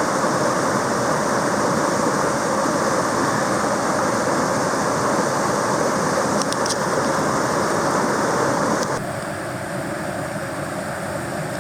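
Steady rushing of a mountain stream, an even wash of water noise that drops slightly in level about nine seconds in.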